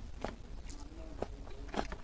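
Close-up chewing of a mouthful of stewed pork, with wet mouth smacks about twice a second.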